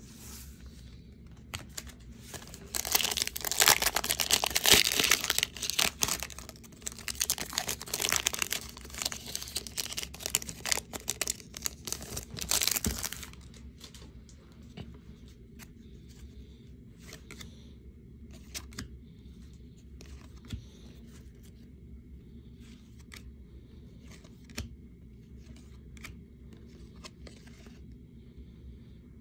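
Crinkly wrapper of a trading-card pack being torn open and crumpled, loud and continuous for about ten seconds from near the start. After that come softer scattered ticks and rustles of the cards being shuffled in hand.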